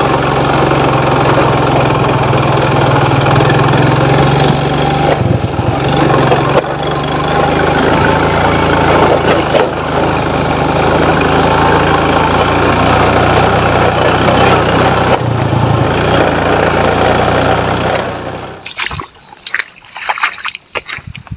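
Small motorcycle engine running steadily while riding over a muddy, bumpy track. It cuts off near the end, leaving a few quieter knocks and scuffs.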